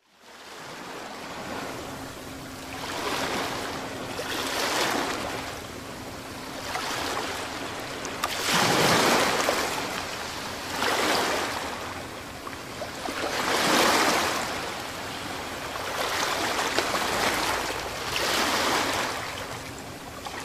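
Waves washing in, the sound swelling and fading about every two seconds, with a faint steady hum underneath.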